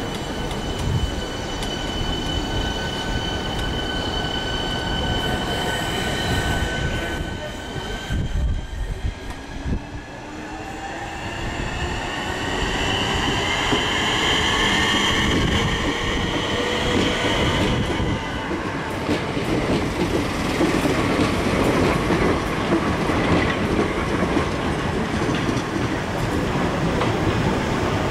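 Southeastern Networker electric multiple unit pulling out of the platform. A steady high electric whine for the first several seconds, then a whine that rises in pitch as the train accelerates from about ten seconds in, followed by wheel and rail rumble as it passes and runs away.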